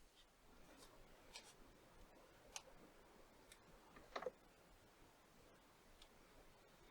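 Near silence with a few faint, scattered clicks, and a slightly louder short clatter about four seconds in.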